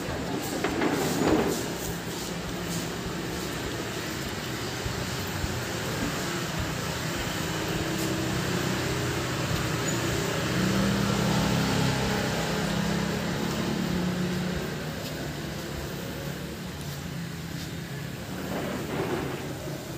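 A motor engine humming steadily over a general background wash, growing louder around the middle and fading again toward the end.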